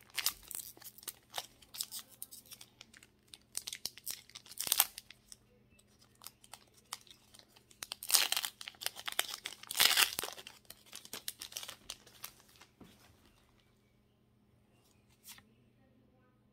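Foil wrapper of a Pokémon card booster pack being torn open and crinkled by hand: a run of sharp rips and crackles, loudest about eight and ten seconds in. Then it dies away to near quiet, with one click near the end.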